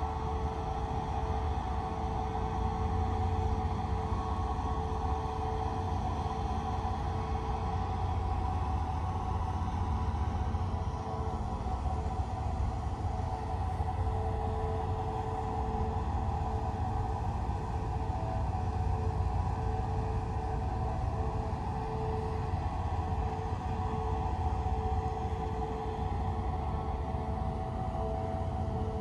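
Boat engine machinery running steadily: a low rumble under a constant, even hum.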